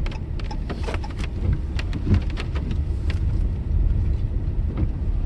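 Car driving slowly, heard from inside the cabin: a steady low rumble with scattered small clicks and knocks.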